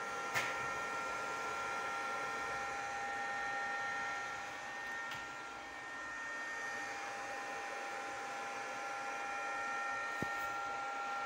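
INVT Goodrive100-PV solar pump inverter running: a steady fan-like rush with a few steady high whining tones over it. A sharp click comes about half a second in.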